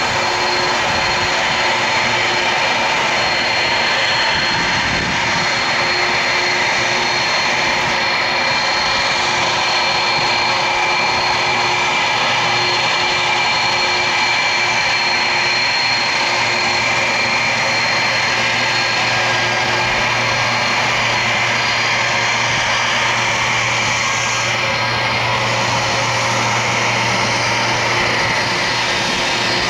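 Airbus A330-200's twin General Electric CF6-80E1 turbofans running at low taxi power: a steady jet whine with high tones over a low hum, the hum growing a little stronger about halfway through.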